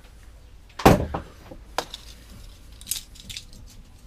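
A single loud knock about a second in, then a few lighter clicks and clatters: a metal carburetor body and tools being handled and set down on a workbench.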